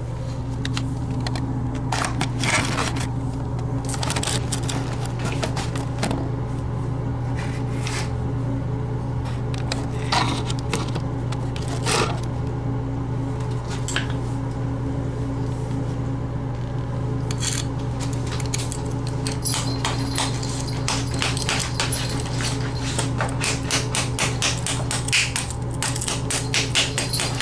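Hammer striking a steel chisel to chip old mortar off concrete, making sharp metallic strikes that are scattered at first and come several a second in the second half. A steady low hum runs underneath.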